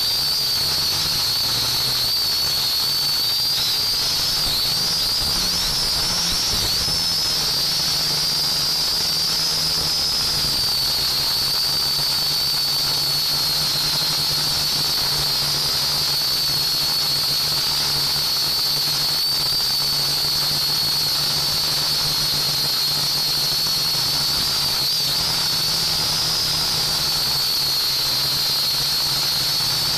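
Small quadcopter drone's motors and propellers running steadily, picked up by the drone's own camera: a high-pitched whine that wavers slightly in pitch, over a low hum and hiss.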